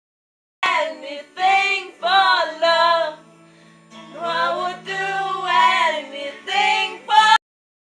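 Young girls singing a melody in short phrases over a steady low held note. The audio drops to dead silence abruptly at the start and again near the end.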